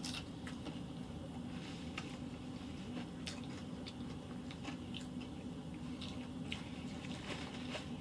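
A person chewing food close to the microphone, with scattered small mouth clicks.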